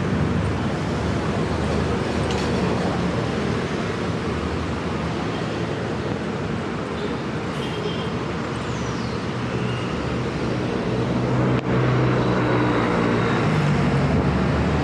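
Busy city street traffic dominated by bus engines running close by: a steady low engine drone over road noise that grows louder near the end.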